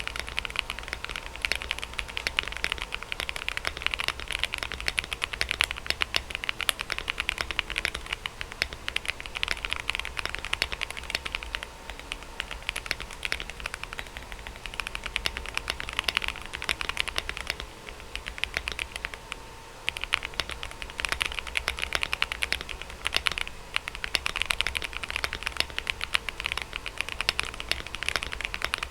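Fast, continuous typing on a Monsgeek M1 mechanical keyboard with Aflion Ink switches, Akko ASA-profile PBT double-shot keycaps, a tape mod and lubed screw-in stabilizers. The keystrokes come in quick clacking runs, with a few short pauses between bursts.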